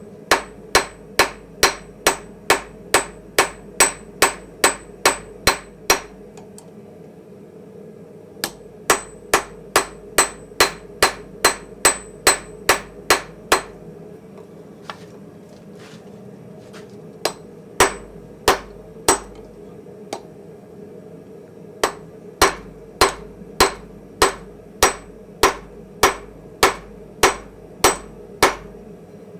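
Blacksmith's hammer striking hot steel on a small Austrian/German pattern anvil, a steady rhythm of about two blows a second in four runs with short pauses between. Each blow rings briefly.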